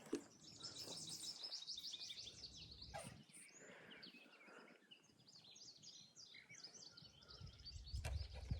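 Songbirds singing faintly: a fast, high trill of repeated notes in the first three seconds, then scattered chirps.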